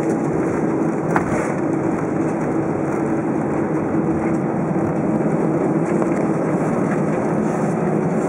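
Airbus A319 airliner heard from inside the cabin while taxiing: a steady jet-engine hum with a constant tone over the airflow and rumble, with a brief knock about a second in.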